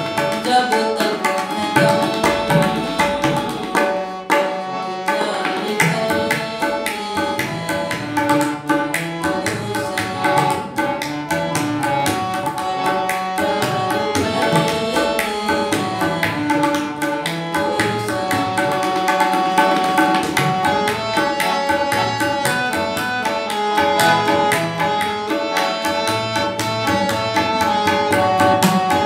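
Tabla and harmonium playing together: a dense, steady tabla rhythm under the held reedy notes and melody of a hand-pumped harmonium.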